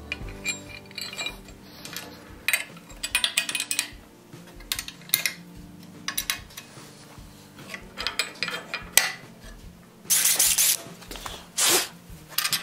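Steel hardware being handled: irregular metallic clinks and taps as a black steel bracket is slid over bolts on a wooden wagon beam, with a longer scrape of metal about ten seconds in and a shorter one near the end. Faint background music sits underneath.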